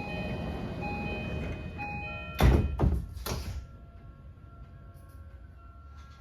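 Tokyu 3020 series train heard from inside, its running rumble carrying the Mitsubishi full-SiC inverter's stepped tones. About two and a half seconds in come three heavy thumps close together, after which the running noise drops to a quiet hum, as when the train comes to a stop.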